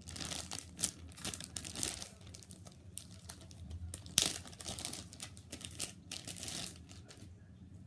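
Clear plastic bag around a squishy toy crinkling as it is handled, in uneven crackles that die down near the end.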